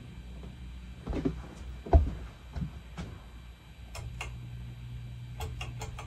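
A 52-inch Hunter Original ceiling fan with five blades and an oil-bath PSC motor hums low, with scattered clicks and knocks and one heavy thump about two seconds in. From about four seconds in the hum grows steadier and stronger, and a few sharp clicks follow near the end.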